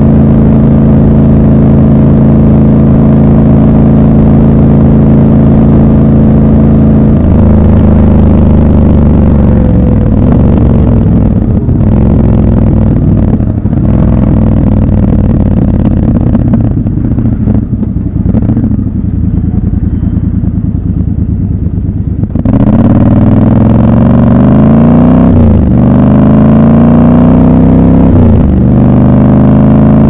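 Triumph Scrambler 1200 XC's 1200 cc parallel-twin engine, heard from the rider's seat. It runs steadily at a cruise, then the pitch drops as the bike rolls off and slows. About two-thirds of the way in it accelerates hard with a rising pitch, broken twice by upshifts.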